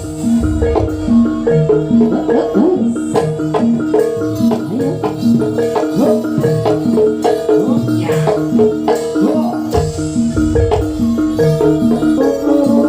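Javanese gamelan music accompanying a jaranan dance: metallophones strike short, repeated pitched notes in a steady pattern over drumming, with deep low booms near the start and again about ten seconds in.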